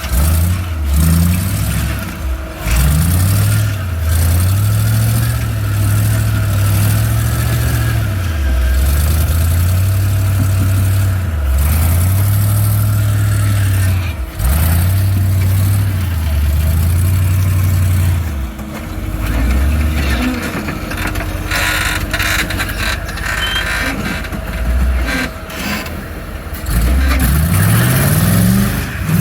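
Off-road vehicle's engine revving up and down as it crawls up a trail obstacle, its pitch rising and falling every few seconds. The engine eases off for a few seconds past the middle, then revs climb again near the end.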